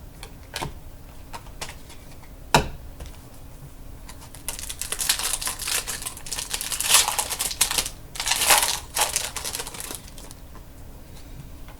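Trading card packs and cards being handled: a few sharp taps, the loudest about two and a half seconds in, then several seconds of rapid clicking and crinkly rustling as a pack wrapper is worked open and the cards are flicked through.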